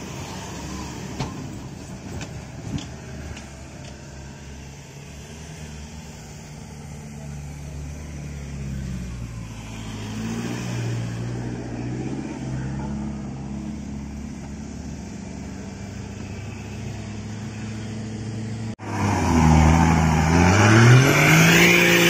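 Four-wheel-drive engines running at low revs in soft sand, slowly getting louder. After a cut about 19 s in, a Holden Colorado ute's engine revs hard, rising and falling, as it spins its wheels in the sand while being pulled out on a snatch strap.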